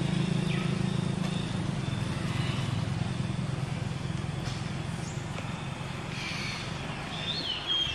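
A motor vehicle's engine running steadily and slowly fading away, with a few short high chirps near the end.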